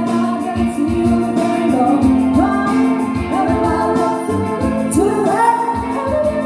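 Pop music: a voice singing a melody over instrumental backing with a steady beat.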